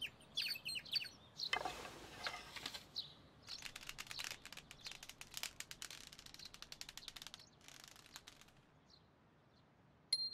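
Sparrows chirping a few short times, then a flutter of wings as they take off, followed by a long run of faint rapid crackling. Near the end comes a brief thin high tone.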